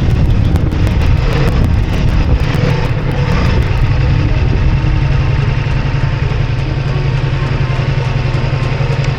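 Ducati Multistrada V4S motorcycle running on the road, a loud, steady low engine rumble with road and wind noise, picked up by a camera clamped to the bike. It cuts off abruptly at the end.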